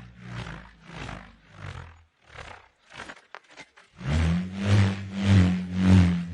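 Bullroarer (rhombus) whirled on its cord: a low humming roar that swells and fades about every half second as the slat spins round. It dies away about two seconds in and starts up again, louder, near the four-second mark.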